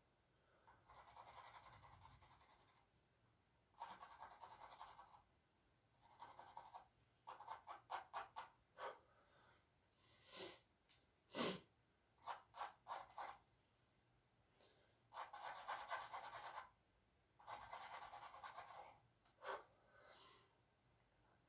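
Faint scratching of a charcoal stick drawn across canvas: a series of strokes, some long sweeps lasting a second or two and some quick short hatching strokes in bursts, with one sharper tap about the middle.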